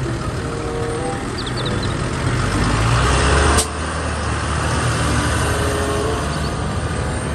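Diesel engine of a large green Fendt farm tractor running as the tractor drives and turns on pavement, with a steady low rumble under a wide hiss. The sound builds louder over the first three seconds or so, then drops suddenly with a click about halfway through.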